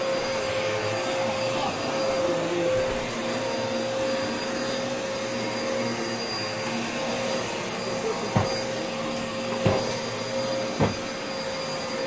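Vacuum cleaner running steadily: a constant rush of air with a steady hum and a high whine. Three short knocks come in the second half.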